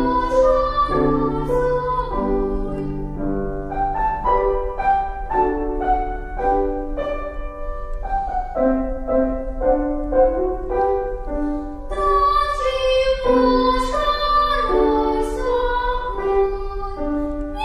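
Piano accompaniment to a children's song, with a young girl singing over it near the start and again near the end, and the piano playing alone in between.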